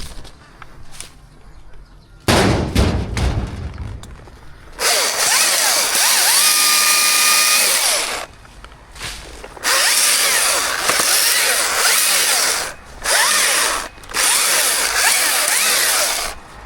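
Chainsaw cutting wood in four bursts, stopping briefly between cuts. A short, heavy low thud comes before the first cut.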